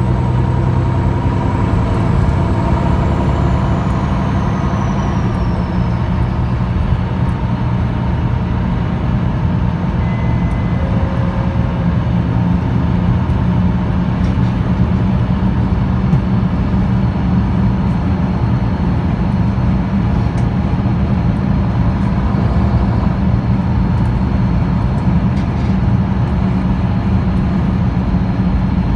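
MAN NL323F bus's MAN D2066 LUH-32 six-cylinder diesel engine running steadily under way, heard from inside the cabin, with road and tyre noise. A faint high whine falls in pitch a few seconds in.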